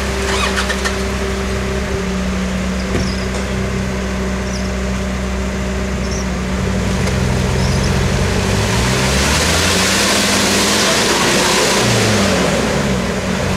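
Off-road SUV engines working under load in deep mud and water. The engine note holds steady at first, then rises and falls as they rev from about seven seconds in. From about nine to thirteen seconds a loud rush of slurry thrown up by the spinning wheels rises over the engines.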